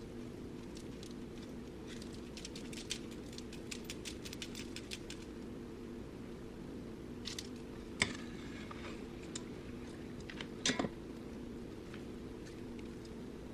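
Light handling noises from making cookies on a foil-lined sheet: a quick run of small clicks and taps, one sharp knock about eight seconds in and a few more knocks near the end, over a steady low hum.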